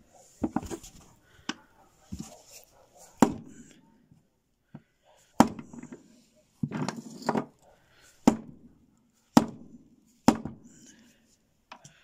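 Rubber mallet knocking on an old shaft seal used as a driver, tapping a new seal into the hub of a washing machine's plastic tub: about nine dull knocks, unevenly spaced roughly a second apart.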